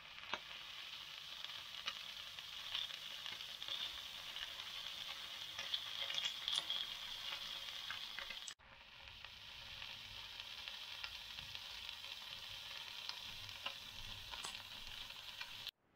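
Sausages, prawns and salmon pieces sizzling in oil in a stainless steel frying pan: a steady hiss with scattered pops and crackles. The sound breaks off for an instant about halfway through.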